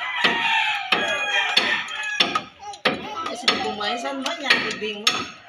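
A rooster crowing, its call sliding down in pitch about a second in, over sharp metallic knocks about every half second from work on a dismantled Yanmar transmission.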